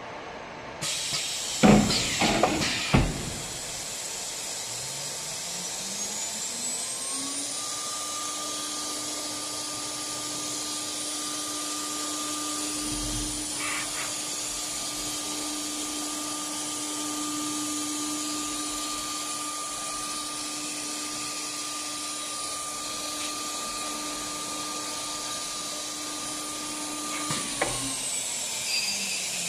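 CNC router spindle spinning up to a steady high whine, holding speed, then winding down near the end, over a steady hiss. A few loud knocks and bursts come just after the hiss starts.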